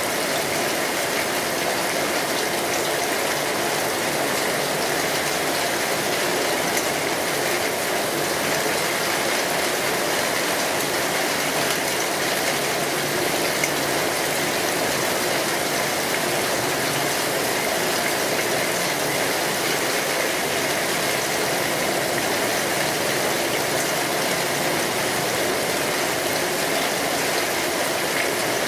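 Steady rain falling on a street, an even hiss with no let-up.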